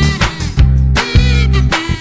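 Background music with a bass line and a steady drumbeat.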